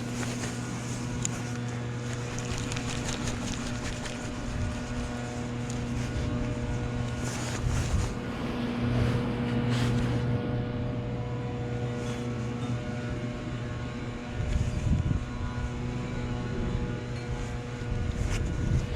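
A steady engine hum holding one low pitch, with some rushing noise that swells a little a few times.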